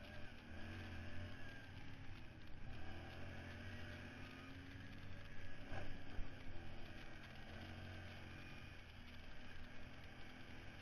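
ATV engine running steadily while the quad rides over a rocky trail, with a brief knock about six seconds in.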